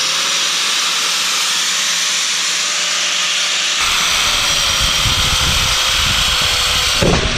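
Angle grinder with a diamond blade running at full speed with a steady whine, cutting fiber cement siding board. About halfway through, a low rumble joins in and the whine dips slightly as the blade bites into the board.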